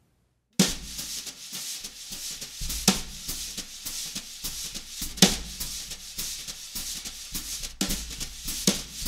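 Wire brushes played on a snare drum: a steady swishing sweep across the head with sharper brush strokes as accents, starting about half a second in.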